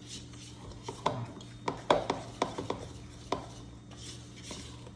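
Dough being mixed in a bowl with a silicone spatula: a run of sharp knocks and scrapes of the spatula against the bowl, most of them between about one and three and a half seconds in, then softer stirring.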